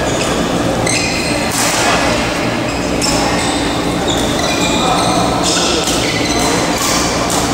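Badminton play in a large hall: sharp racket strikes on shuttlecocks and short squeaks of shoes on the court floor, over a steady hall hum.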